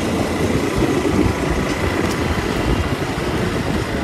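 Motorised two-wheeler's engine running as it rides along, with a steady, fluttering rumble of wind on the microphone.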